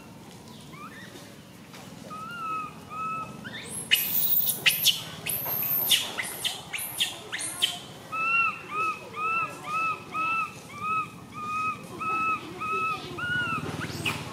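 Infant long-tailed macaque crying: a series of short, high, arched coo calls at about two a second, broken in the middle by a few seconds of louder, shrill screams.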